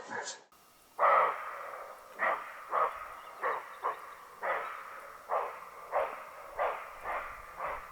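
Roe deer barking: a series of about a dozen short barks, one every half to three-quarters of a second, each dropping in pitch.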